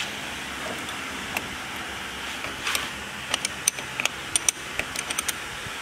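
Light metallic clicks and clinks of hand tools working in a car's engine bay. About a dozen irregular ticks fall close together in the second half, over a steady background hiss.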